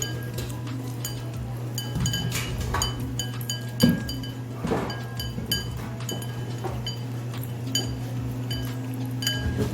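Dogs eating dry kibble from a bowl: irregular light clinks and taps against the bowl, each with a brief ring, the loudest about four seconds in.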